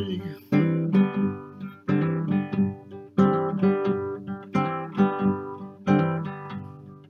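Background music: an acoustic guitar plays an instrumental passage of a hymn tune, chords struck at a steady slow pace, each ringing and fading.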